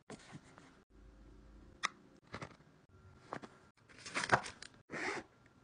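Handling noise of fabric bags being packed: a pouch and a lined bag rustling and items being slid and knocked into them in short irregular bursts, with one sharp click a little under two seconds in.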